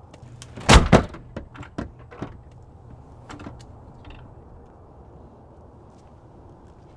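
A back door shuts with one loud thud about a second in, followed by a few softer clicks, then a low steady outdoor background.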